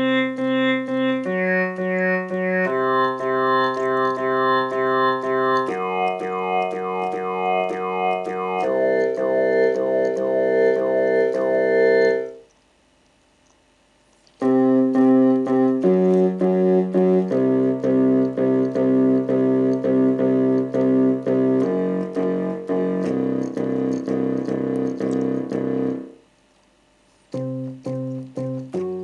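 Korg Kronos synthesizer playing a synth bass preset from the VITA Synth Bass HD1 sound bank: rapid repeated pulsing notes moving through chord changes every second or two. It plays in two phrases of about twelve seconds, each cut off sharply by a short silence, and a new phrase starts near the end.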